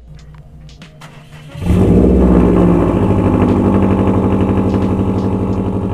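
Subaru WRX/STI flat-four engine starting up through an AWE catback exhaust. It fires about a second and a half in with a loud flare, then slowly settles lower toward idle.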